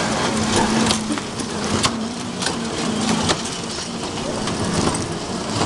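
Children's ride-on toy truck ride running along its track: a low motor hum that comes and goes, with scattered sharp clicks over a haze of noise.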